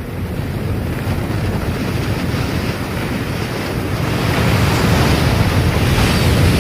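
Ocean surf and wind, an even rushing noise that swells louder about four seconds in.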